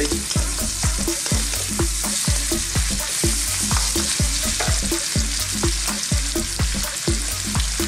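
Beef and bean sprout stir-fry sizzling in a wok on high heat, stirred with a wooden spoon that scrapes and knocks against the pan about three times a second.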